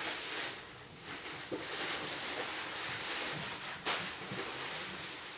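Plastic packing wrap rustling and crinkling as it is pulled out of a cardboard box, with one sharp crackle about four seconds in.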